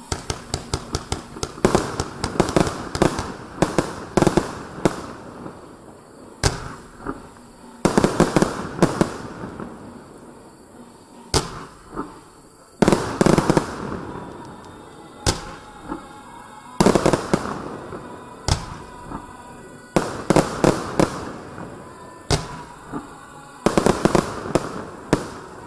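Consumer cake firework firing: volleys of sharp shots and bursting cracks, several in quick succession, coming every couple of seconds.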